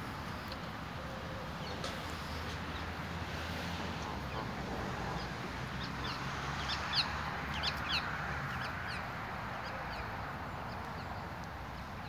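A cluster of short, high, quickly falling bird peeps about six to nine seconds in, over a steady rushing background of flowing river water.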